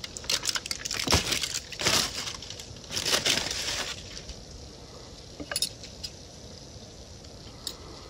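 Aluminium foil crinkling and rustling as a crumpled foil cover is pulled off and set aside, busiest in the first half. After that come a few light clicks of a knife and fork against the pan.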